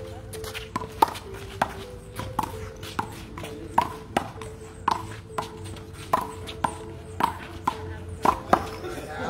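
Small rubber handball being struck by hand and rebounding off the concrete wall in a fast rally: a quick run of sharp slaps, about two a second, many with a short ringing ping.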